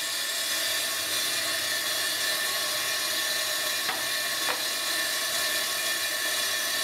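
Table saw running at speed with a steady motor and blade whine, not yet cutting, while a board is slid along the fence. Two light ticks come about four seconds in.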